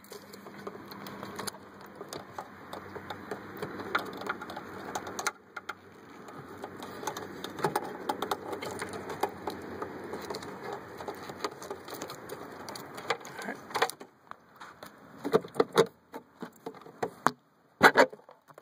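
A Mustang taillight assembly being worked loose and pulled out of the body: a long stretch of rubbing and scraping with many small clicks, broken by a short pause about five seconds in, then a few scattered knocks near the end.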